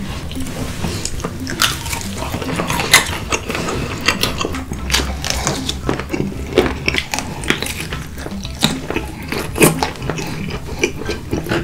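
Close-up eating sounds: a person biting and chewing, with many sharp, irregular crunching clicks.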